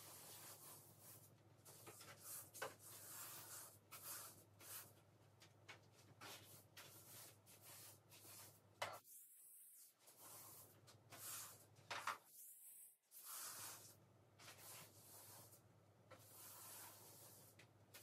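Faint household cleaning noises: soft rubbing and scraping with scattered light knocks, over a steady low hum.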